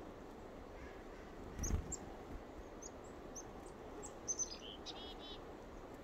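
Chickadees giving short, high call notes several times, with a quick run of harsher repeated notes about five seconds in. A brief low thump, the loudest sound, comes just under two seconds in.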